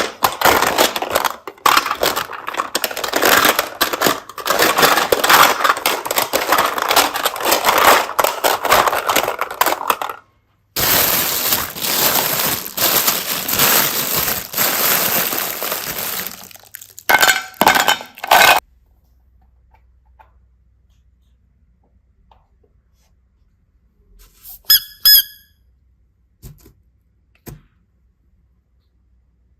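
Slime being squeezed and pressed by hand, with dense wet crackling and popping for most of the first half, broken by a short pause. Later come a few short squeaks, followed by long stretches of near quiet.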